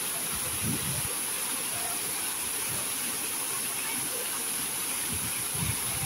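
Water pouring in a continuous ring-shaped curtain from an overhead fountain canopy and splashing into the tiled basin below: a steady hiss.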